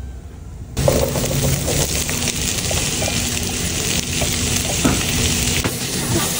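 Canned whole-kernel corn frying with chopped onion in a hot nonstick wok, a steady sizzle that comes in suddenly about a second in. A plastic spatula stirs it, adding small scrapes and clicks.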